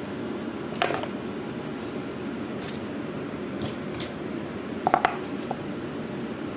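Light clicks and taps from handling a multimeter's test leads and a small capacitor. The loudest is a quick cluster of three clicks about five seconds in. A steady fan-like hum runs underneath.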